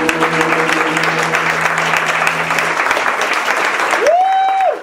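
Audience applauding, with a held low chord from the band ringing under the clapping until about three seconds in. Near the end one high, held cheer rises over the applause, and then the sound cuts off suddenly.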